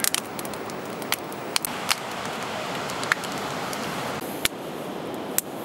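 Campfire crackling: sharp pops at irregular intervals, roughly one a second, over a steady hiss.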